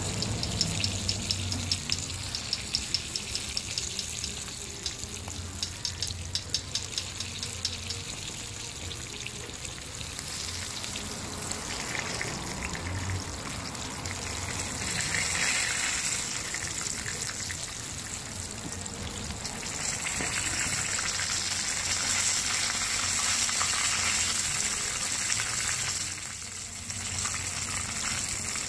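Porgy fish frying in hot oil in a skillet: a steady sizzle with rapid crackling pops in the first few seconds. This is the sizzle the cook calls the song, the sign that the fish are frying right.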